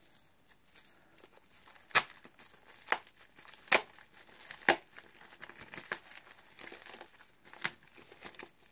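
Packaging being unwrapped by hand: wrapping crinkling and rustling, with sharp crackles, four about a second apart and one more near the end.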